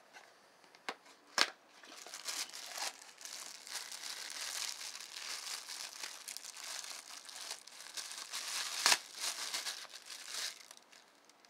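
Thin clear plastic bag crinkling as it is handled and pulled off a soft lens pouch. There are two sharp, louder crackles, about a second and a half in and about nine seconds in.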